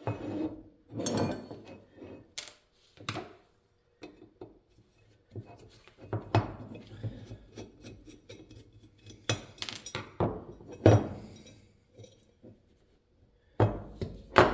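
Irregular clinks and knocks of small metal parts of an antique coffee grinder being handled and set down during disassembly, some ringing briefly.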